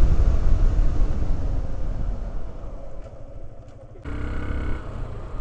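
KTM Duke 390 single-cylinder motorcycle on the move, heard from the bike: engine running under heavy wind noise that dies down between about two and four seconds in, then cuts abruptly to a steadier engine hum.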